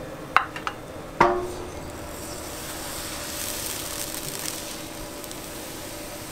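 A few sharp clacks, the loudest about a second in with a short ring, then a soft hissing swish from about two to five seconds as a wooden crepe spreader is swirled through thin batter on a hot crepe griddle.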